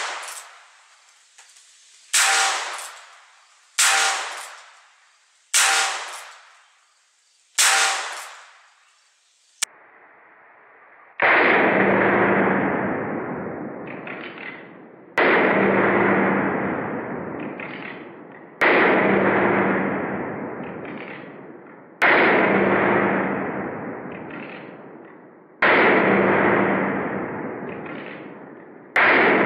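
Handgun shots: four sharp cracks with ringing tails, about two seconds apart. Then, from about eleven seconds in, six duller, lower booms about three and a half seconds apart, each ringing out for three seconds or more.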